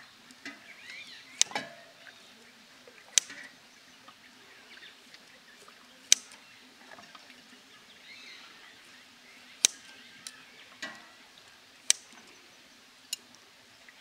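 Stainless steel ladle clinking against a steel pot and bowl while egg broth is ladled out: about six sharp metallic clinks spaced a second or more apart, with the soft splash of broth being poured between some of them.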